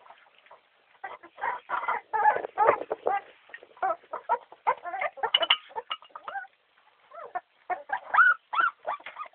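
Boxer puppies making many short, high-pitched yelps and whimpers in quick succession as they jostle over food, with a quieter gap near the start and another a little past halfway.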